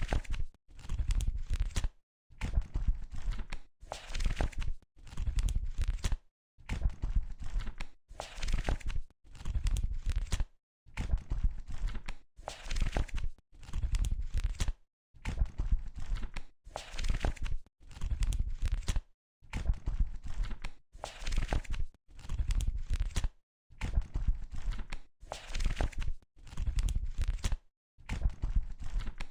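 Paper pages of a book being turned one after another, each flip a short papery rustle with a soft low thump, about one every second and a half with brief silences between.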